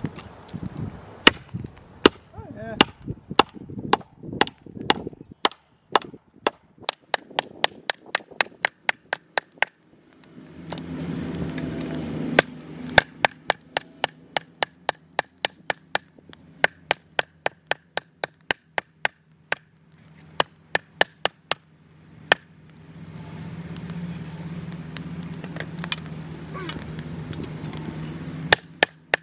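Claw hammer striking a heated steel lawnmower blade laid on a wooden beam, in quick runs of sharp blows about three a second, hammering the blade's waves flat. A steady droning hum comes in twice between the runs of blows.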